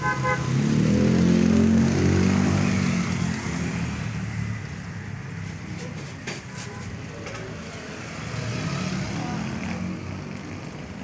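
A motor vehicle's engine passing by on the street, loudest in the first couple of seconds and then fading. A second, quieter vehicle passes near the end.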